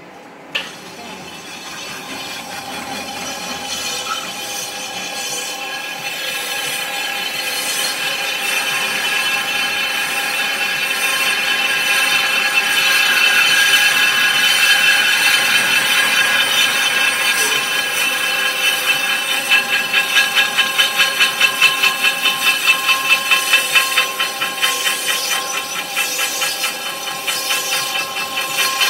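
Rim repair machine running: a steady mechanical whine made of several pitched tones that slowly grows louder, then pulses about two to three times a second in the second half. A single sharp click comes just after the start.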